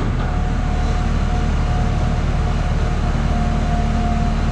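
2004 Ford F-650 rollback's engine idling steadily, a deep even hum with a thin steady whine over it.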